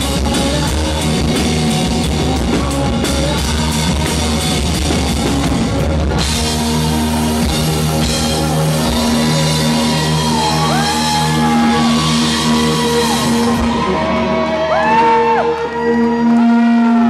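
Live rock band playing loud, with drums and distorted electric guitars, the recording itself distorting from right in front of the stage. A heavy cymbal wash comes in about six seconds in and stops near the end, leaving held notes that bend up and down in pitch.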